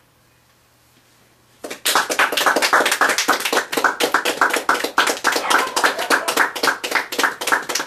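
A small audience clapping, starting about a second and a half in and carrying on as dense, irregular applause.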